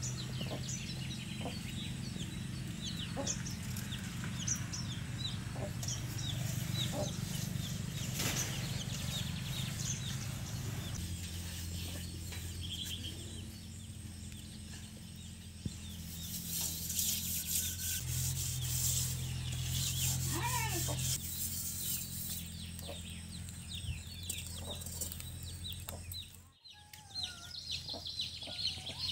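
Rural yard ambience: small birds chirping over and over and chickens clucking, over a steady low hum, with a stretch of hissing noise a little past halfway.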